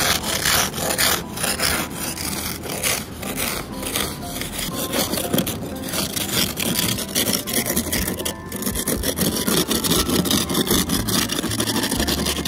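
A snow brush and scraper scraping and pushing snow off a car's windshield in quick, repeated strokes.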